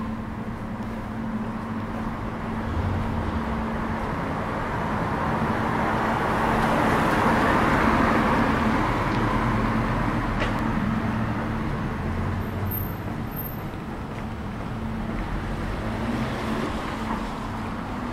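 A car passing along the street, its noise swelling to a peak about eight seconds in and then fading away, over a steady low hum of street traffic.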